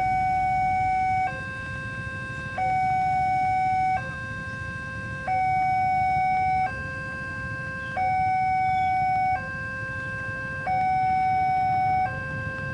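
Railroad level-crossing warning alarm sounding its electronic two-tone signal: a higher, louder tone and a lower tone alternate, each held about a second and a third, warning that a train is approaching and the barrier is down.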